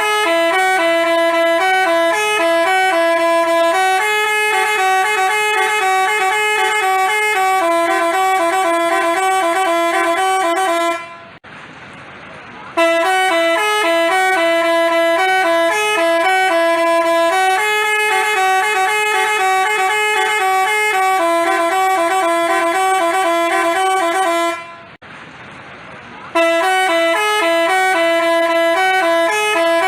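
Telolet basuri bus horn playing a melody of bright, quick alternating notes, loud and continuous. It breaks off twice, about 11 and 25 seconds in, for roughly a second and a half, then starts the same tune again.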